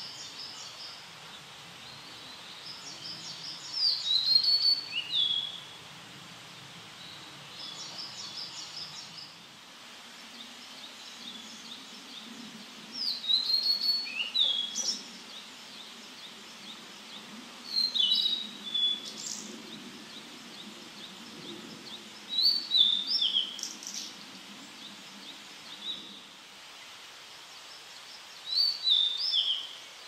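Tledekan (blue flycatcher) song: about five loud phrases of clear whistled notes that slide sharply down in pitch, each lasting a second or two, with pauses of a few seconds between them. Softer, quicker chattering phrases fall in some of the gaps.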